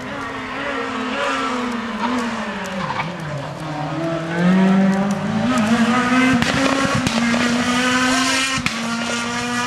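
Renault Clio rally car's engine at speed: the revs fall as the car slows, then climb hard as it accelerates past around four seconds in, loudest there, and stay high as it drives away.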